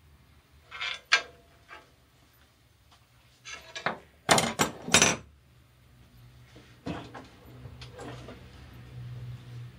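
Metal clanks and knocks of a steel adjustable wrench being picked up and handled at a band saw's metal table: a couple of light knocks about a second in, then a louder cluster of three or four clanks around four to five seconds in.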